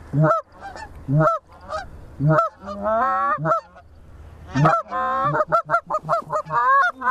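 Goose honking and clucking: single sharp honks about a second apart at first, two longer wavering moans near three and five seconds in, then a quick run of clucks about four a second near the end.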